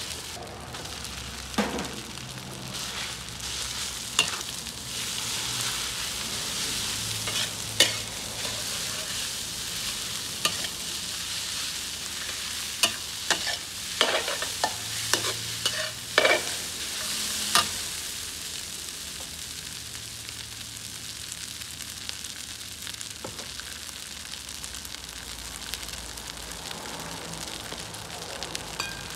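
Fried rice with mackerel and egg sizzling in a steel wok as a metal spatula stirs and scrapes it, with sharp clanks of the spatula against the wok. The clanks come most often a little past the middle, then stop, and the sizzle runs on a little quieter.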